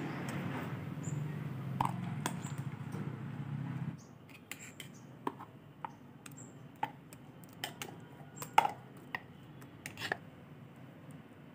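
A metal spoon scraping and knocking against a stainless-steel mixer-grinder jar as thick ground spinach and moong dal paste is scooped out, in a string of sharp separate clicks and taps. A steady low hum runs under the first four seconds and then stops abruptly.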